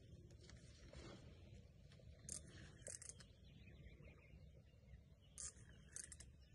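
Near silence: faint outdoor ambience with a low rumble and a few brief, faint high chirps.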